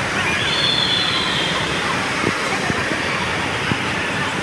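Echoing indoor waterpark din: a steady wash of many distant voices and rushing water, with a brief high shout about half a second in.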